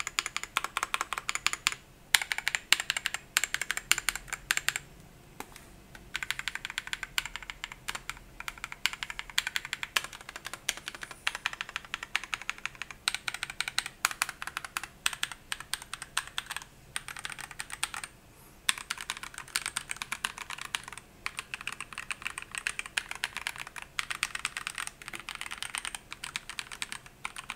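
Typing on a Langtu L84 mechanical keyboard fitted with Akko Snow Blue Grey linear switches: rapid key clacks in runs with brief pauses. The owner finds it slightly hollow and plasticky and puts this down to the plastic case having no foam underneath.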